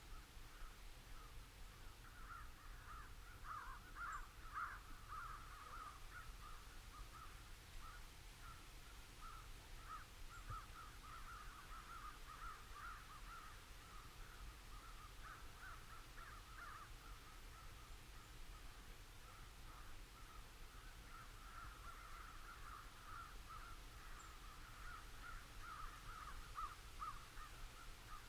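Faint chorus of crows cawing, many calls overlapping without a break, over a low steady hum.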